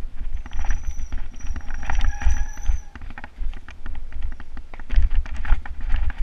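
Mountain bike rattling down a rough dirt trail: the chain and frame clatter in quick irregular knocks over roots and rocks, with wind rumbling on the helmet-mounted camera's microphone. A thin high squeal sounds for about two and a half seconds near the start.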